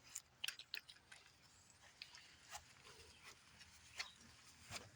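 Near silence broken by faint, irregular clicks and taps, about a dozen over five seconds, the clearest about four seconds in and just before the end.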